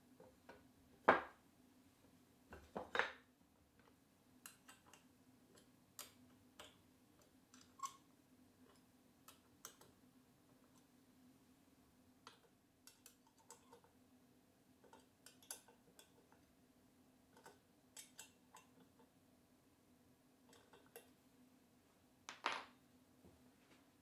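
Scattered light taps and knocks of wooden blocks and a metal plate being handled and set in place on a workbench. The louder knocks come about a second in, about three seconds in and near the end, over a faint steady hum.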